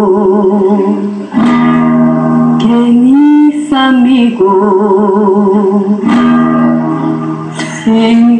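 A woman singing a run of long held notes with vibrato, accompanied by an acoustic guitar.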